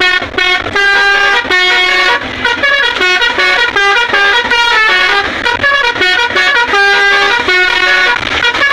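Tour bus's basuri telolet horn, a multi-tone musical horn, playing a quick melody of short held horn notes that step up and down in pitch several times a second.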